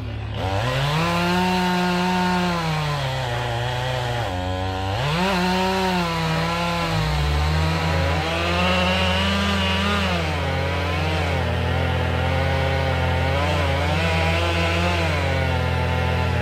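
Chainsaw engine revving up and down repeatedly as it cuts. About seven seconds in, a steady low engine drone from heavier machinery comes in beneath it.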